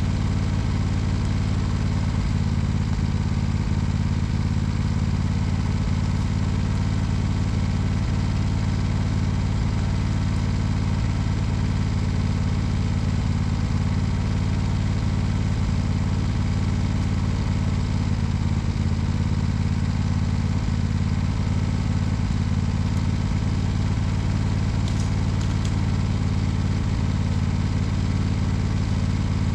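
A 16 hp Simplicity lawn tractor's engine idling steadily.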